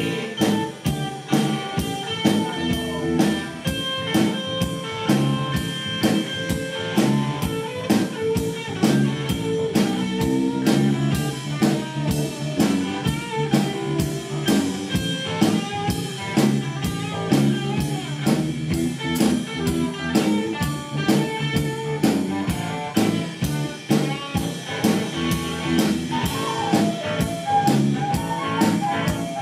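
Live band playing a bluesy instrumental passage, guitar over a steady drum-kit beat, with a flute joining near the end.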